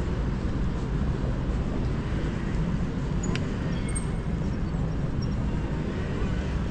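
Outdoor city ambience: a steady low rumble of traffic noise, with one brief sharp tick about three seconds in.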